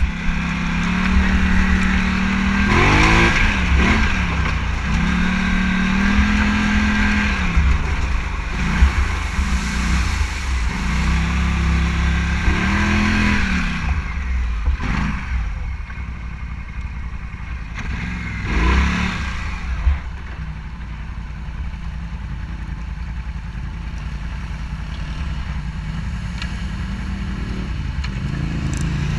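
Motorcycle engine running while riding, its pitch rising and falling again and again as the throttle opens and closes, over a heavy low rumble of wind on the microphone. There are brief louder sweeps about 3, 15 and 19 seconds in.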